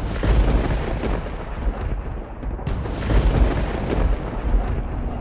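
Deep, continuous rumbling noise with a few sharp cracks: a thunder-like cinematic sound effect on an animated intro card.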